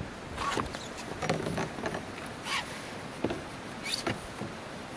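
A canoe and its paddle being handled: irregular light knocks and scrapes of gear against the hull, several short ones spaced roughly half a second to a second apart, over a steady background hiss of moving water.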